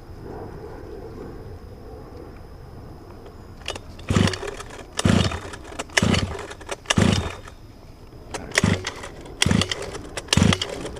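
The small two-stroke gas engine of a Losi 5ive-T RC truck being pull-started over and over, about once a second from roughly four seconds in, without catching. The engine will not start because its head gasket turned out to be missing.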